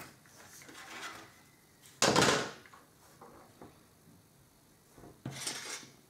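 Handling noises of small plastic model parts and tools being worked on a bench. There is a short, loud burst of noise about two seconds in and a second, softer one about five seconds in, with faint small clicks between.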